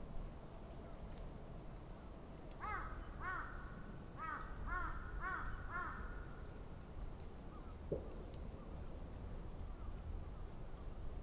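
A crow cawing: a run of about six hoarse caws a few seconds in, over a steady low outdoor rumble, with one short click later on.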